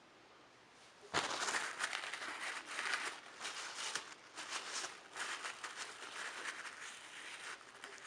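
Packaging crinkling and rustling as it is handled, starting about a second in and going on in irregular crackly bursts.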